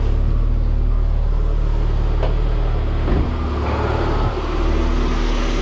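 Car engine held at raised revs, about 2,500 rpm, for an alternator charging test. The sound is steady, then changes about four seconds in.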